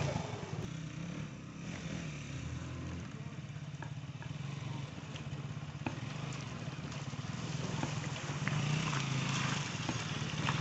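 KTM Duke 200's single-cylinder engine running at low revs over rough ground. It fades in the first second or two and grows louder again near the end as the bike comes close.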